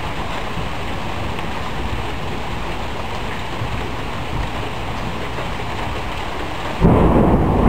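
Steady heavy rain, then thunder breaks near the end with a sudden loud rumble that keeps going.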